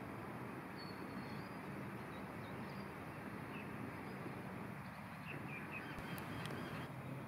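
Outdoor background noise, steady, with faint bird chirps scattered through it, more of them in the last couple of seconds.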